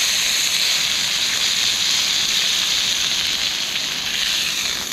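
Two marinated turkey schnitzels sizzling in a hot frying pan: a loud, even hiss that eases slightly near the end.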